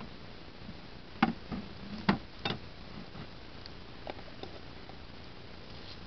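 Wooden beehive frames knocking and clicking against the hive box as they are handled: a few sharp, separate knocks, the loudest in the first half.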